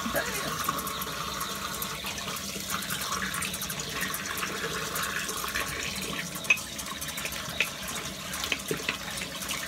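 A tap running steadily into a sink, with scattered splashes, as the face and razor are rinsed after a shave.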